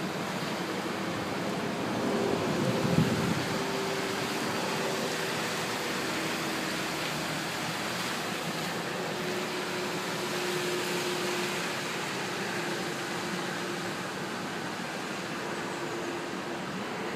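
Steady rush of fast-flowing floodwater, with a faint steady hum underneath and a brief louder swell about two to three seconds in.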